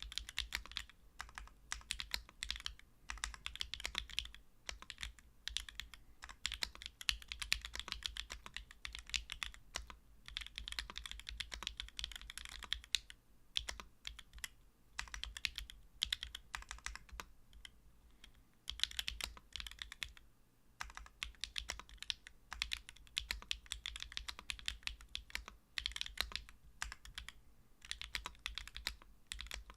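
A SingaKBD PC Kohaku mechanical keyboard being typed on in fast runs of keystrokes with short pauses. It has Sui Xiin Studio Zi Yuan switches, an aluminium plate, a leaf-spring gasket mount, no foam, Durock V2 stabilizers and GMK Nimbus keycaps.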